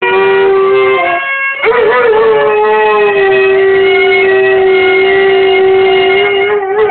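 Dog howling along with a bowed cello, holding long steady notes, with a brief break about a second and a half in.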